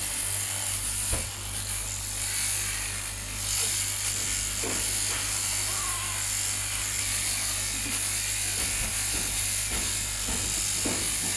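Electric sheep-shearing handpiece on a flexible drive shaft running steadily as it cuts through the fleece: an even buzz with a low hum under it.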